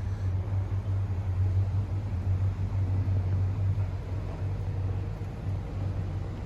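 Excavator engine running steadily with a low hum.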